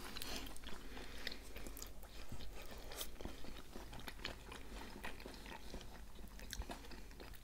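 Close-miked chewing of a mouthful of crab salad (crab sticks, egg, corn and mayonnaise): soft wet mouth clicks and small crunches, irregular and quiet.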